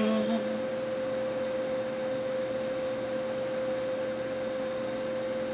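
A steady, unchanging pure tone, a single mid-pitched note held without a break over a faint hiss.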